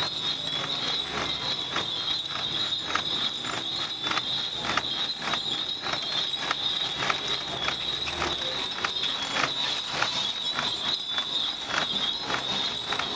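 Wooden carrying poles and rope-lashed crossbars of a Taiwanese temple palanquin clacking and creaking crisply as the bearers carry it, about two knocks a second. A steady high-pitched drone runs underneath.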